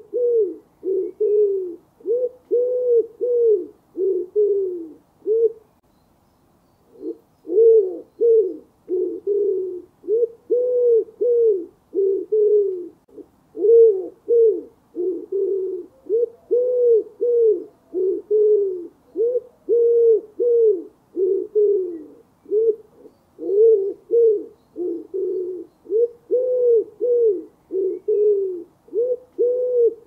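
Common wood pigeon cooing: a steady run of low coo notes, about two a second, each note rising and falling in pitch, with one short pause about six seconds in.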